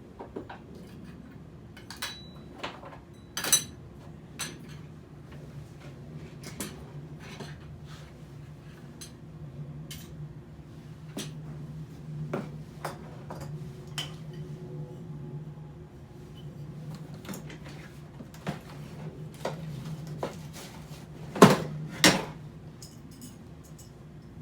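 Small hard objects clinking and knocking as they are picked up, sorted and set down or dropped into the trash, with two louder knocks close together about three-quarters of the way through. A steady low hum runs underneath.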